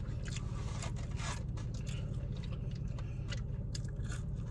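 Short scraping and crackling sounds of styrofoam takeout boxes being handled and fried food being eaten, over a steady low hum inside the car cabin.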